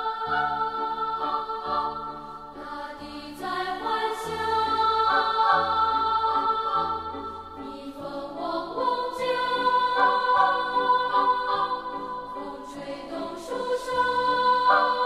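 Background music of sustained choir-like voices singing slow chords that swell and fade.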